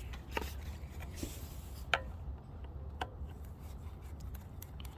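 Hands and a tool working at a truck's fog light bracket: light rubbing and scraping with three sharp clicks spaced about a second apart.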